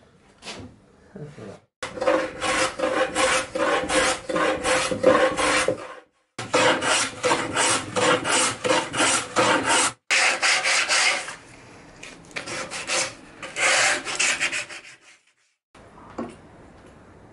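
A hand abrasive tool rubbed rapidly back and forth along the edge of a 3x2 timber frame, smoothing the wood: several runs of rasping strokes, about three or four a second.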